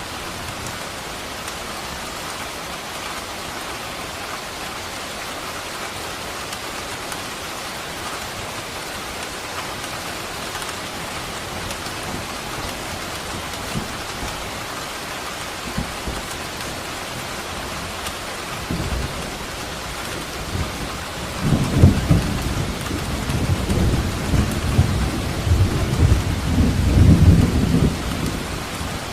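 Steady heavy rain, with a long rolling rumble of thunder building about two-thirds of the way through and loudest near the end.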